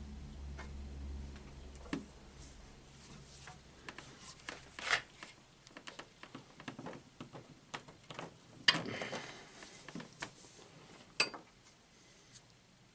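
Scattered clicks, knocks and scrapes of a steel bench vise and a wooden block being handled as the vise is loosened and the block taken out, with two sharper knocks near the end. A low hum stops about two seconds in.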